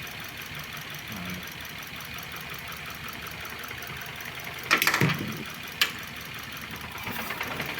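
Car engine idling hot with a cylinder-3 misfire fault active, the coil for that cylinder intermittently losing its signal. A sharp click sounds about five seconds in and another a second later.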